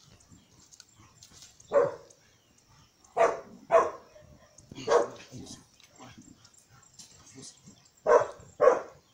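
A dog barking: six short, sharp barks, two of them in quick pairs.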